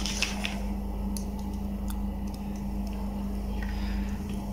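A steady low electrical hum with a few light clicks and taps from plastic multimeter test probes and leads being handled.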